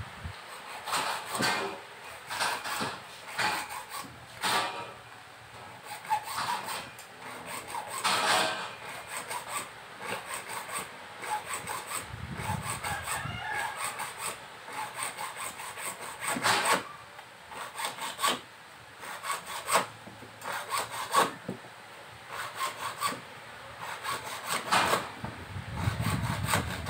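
Hacksaw cutting through orange plastic pipe with quick back-and-forth strokes, about two a second, in runs broken by short pauses.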